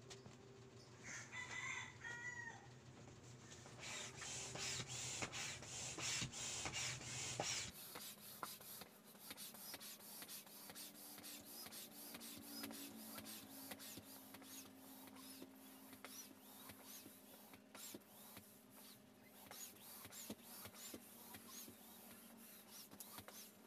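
Faint repeated strokes of a plunger-style hand air pump being pumped to inflate a vinyl airbed sofa, with small squeaks on each stroke. A rooster crows briefly in the background about a second in.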